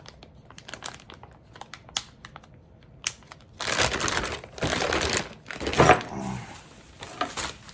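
Bubble wrap and plastic packaging crinkling: light scattered crackles at first, then two loud stretches of rustling in the second half.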